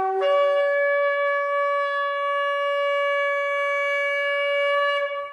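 Shofar blast: a brief lower note breaks upward into one long, steady, higher note. The note stops about five seconds in, leaving a fading echo.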